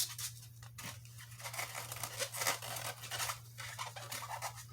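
Handling noise from a plastic packaging tray and its foam blocks: irregular rustling and scraping as the packing is worked loose, over a faint steady low hum.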